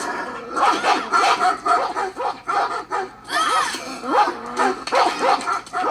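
Several dogs barking in quick succession, several short barks a second, over background music.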